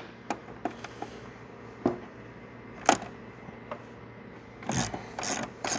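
Hand tools clicking and tapping on metal at a snowmobile's front spindle and ball joint: single light clicks about a second apart, then a quicker run of clicks near the end.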